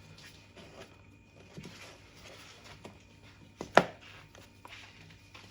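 Hands handling and fitting plastic car parts: scattered light taps and rustles, with one sharp, loud click a little under four seconds in.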